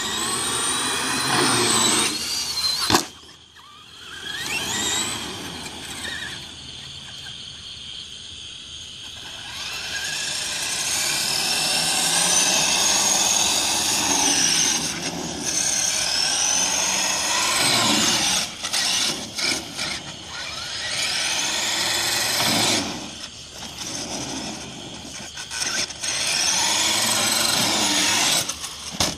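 Radio-controlled monster truck's electric motor whining, its pitch rising and falling as the truck speeds up and slows, with tyres rubbing on concrete. A sharp knock comes about three seconds in.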